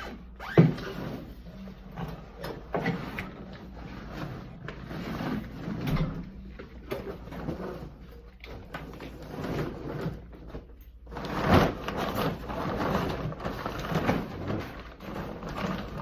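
Empty 40-gallon water heater being hauled up stairs one step at a time, with irregular scraping and knocks against the steps and a sharp thump about half a second in; the scraping grows louder and denser in the last few seconds.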